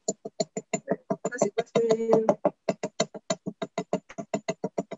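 Rapid light taps of a small jeweller's hammer, about six a second, on a copper rivet, spreading its end into a rounded mushroom head. The blows ring briefly, and around two seconds in a few run together into a short ringing tone.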